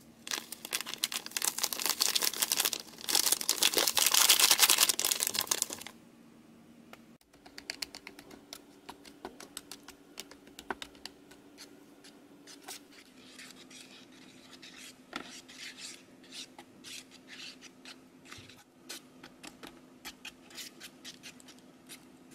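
A dense, scratchy rustle for about six seconds as powder is shaken from a paper sachet into water in a plastic tray. Then a small plastic spoon stirs the candy slime, scraping and clicking against the plastic tray in quick, irregular strokes.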